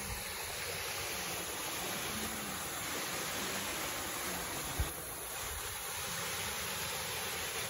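Water spilling over a low concrete weir, a steady rushing. One brief low thump about five seconds in.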